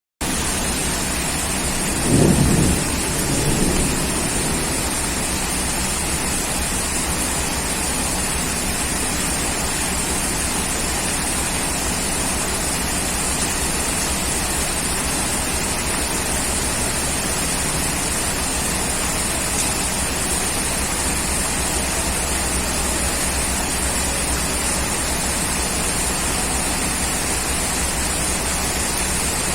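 Steady heavy rain, an even hiss, with a low roll of thunder about two seconds in that dies away by about four seconds.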